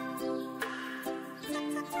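Background instrumental music: a light plucked-string tune, a new note struck about every half-second.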